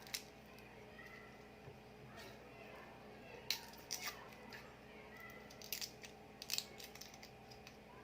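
Faint crackle of red garlic cloves being peeled, the papery skins cracking off, with a few scattered sharp clicks.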